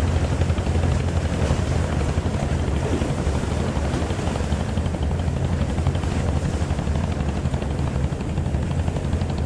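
Fishing boat's engine running steadily, a low throbbing drone.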